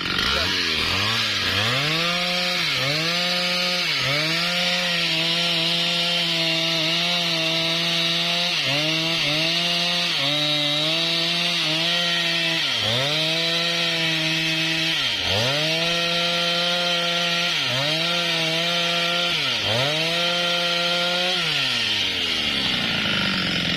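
Husqvarna 395XP two-stroke chainsaw at full throttle, cutting through a sengon log. The engine pitch dips sharply and recovers every second or two as the chain bites and clears, and it winds down near the end as the throttle is let off.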